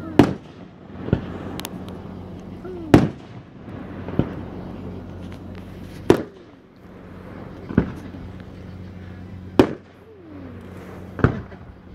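Aerial firework shells bursting overhead: about eight sharp booms, one every second or two, with the loudest near the start, about three seconds in and near the end.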